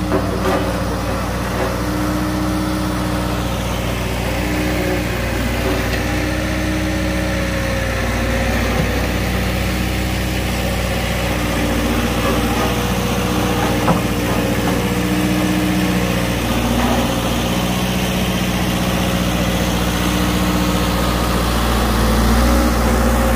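Bomag BW 212 D road roller's diesel engine running steadily at a low, even speed, a continuous hum whose pitch shifts slightly now and then.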